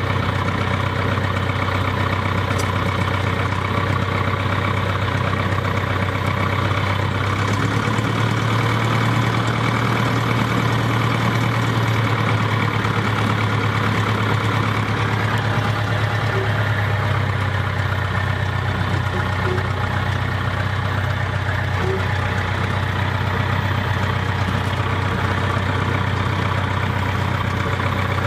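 Single-engine light aircraft's piston engine and propeller running at low power while taxiing, heard from inside the cabin as a steady drone with small shifts in engine speed.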